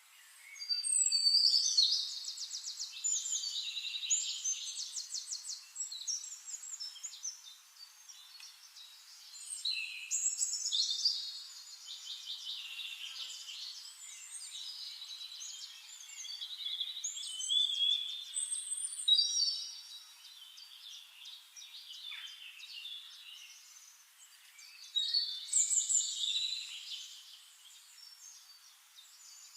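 A songbird singing in long, complex phrases full of rapid high trills, about four bouts: the first and loudest starts right away, then others come about ten, seventeen and twenty-five seconds in.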